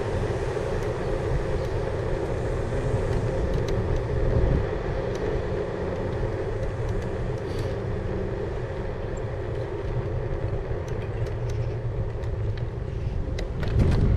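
Steady running noise of an e-bike ridden along a tarmac road: a constant hum over a low rumble of tyres on the road surface, with a brief louder rumble about four seconds in.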